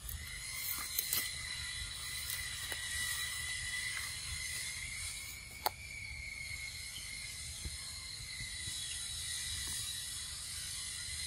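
Steady high-pitched buzzing drone of forest insects, wavering slightly in pitch, with a few sharp clicks about a second in and just before six seconds.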